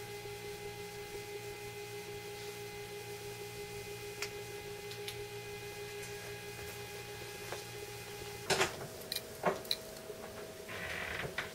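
A steady electronic hum of several held tones. About eight and a half seconds in, a few sharp knocks and clicks break in, and one higher tone carries on after them.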